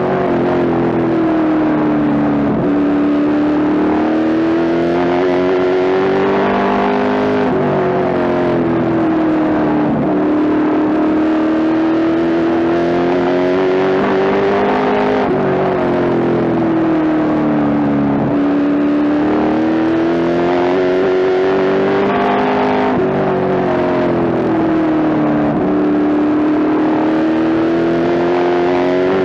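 Pro Stock late-model race car's V8 engine heard from inside the cockpit at racing speed. Its note climbs for several seconds, then drops back, in a regular cycle about every seven and a half seconds: the throttle goes down along each straightaway and lifts into each turn of the short oval.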